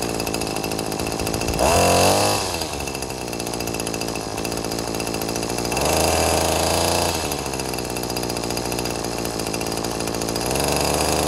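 Maruyama BT230L string trimmer's small two-stroke engine running, idling between throttle blips: revved briefly about two seconds in, again around six seconds in, and then held at a higher speed near the end.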